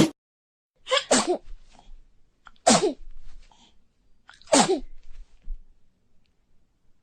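A child sneezing three times, about two seconds apart, each sneeze a sharp burst dropping in pitch.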